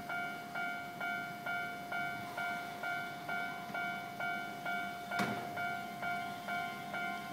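Japanese railway level-crossing warning bell ringing, an electronic clanging tone repeating about twice a second. A single sharp click sounds about five seconds in.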